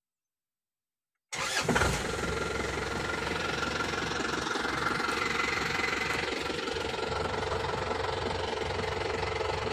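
Isuzu KB250D's 2.5-litre four-cylinder diesel engine heard from inside the cab, coming in abruptly about a second in with a brief louder surge as it starts, then idling steadily.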